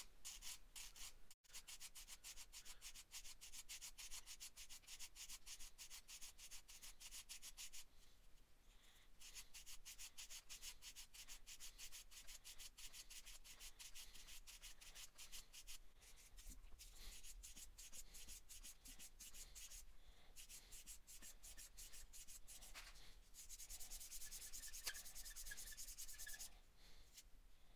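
Multi-grit fingernail file rubbing back and forth in quick, faint strokes over a scraped spot on a toy figure, sanding the scrape smooth. The strokes pause briefly a couple of times and grow louder for a few seconds near the end.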